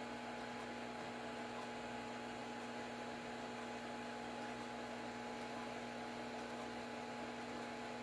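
Steady electrical hum: a few fixed tones over a faint, even hiss.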